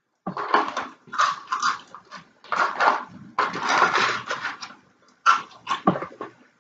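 Close-up chewing of crunchy battered french fries: wet, crunching mouth sounds in irregular bursts with short pauses between bites.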